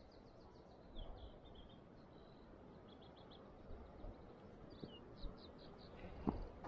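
Faint birdsong, repeated short high chirps and trills, over low outdoor background noise. A single soft click comes about six seconds in.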